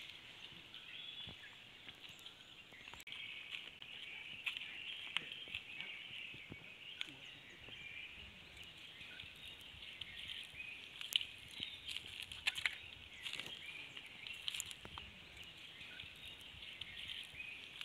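Outdoor ambience: a steady, dense chorus of high chirping from wild creatures, with scattered soft clicks and taps.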